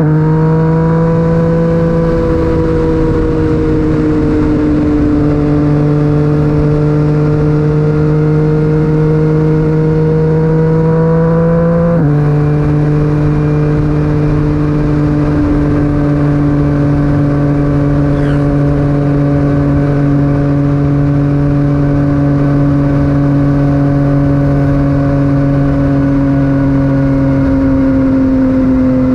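Yamaha MT-09's inline three-cylinder engine through an Akrapovic titanium exhaust, pulling under load. The engine note climbs briefly, holds, then drops suddenly about twelve seconds in as a gear changes up, and eases down slowly near the end.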